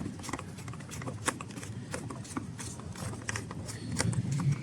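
Irregular light clicks and rattles of hands working small parts and fasteners while dismantling a scooter's rear panels.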